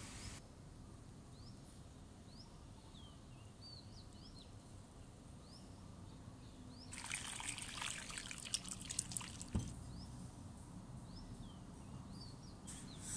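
Water trickling and splashing for about three seconds midway, as boiled butterfly pea flowers and their water drain through a wire-mesh strainer, with a knock near the end of it and a brief splash again near the end. Faint short bird chirps sound throughout.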